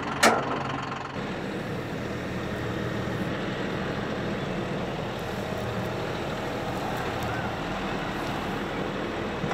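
John Deere 5075E tractor's diesel engine running steadily as its front loader works, pushing brush and dirt. A single sharp clank sounds near the start.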